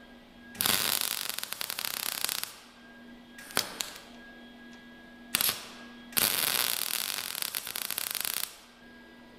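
MIG welder arc crackling as roller chain links are welded: two welds of about two seconds each, with two short tacks between them, each cutting off sharply. A faint steady hum sounds between the welds.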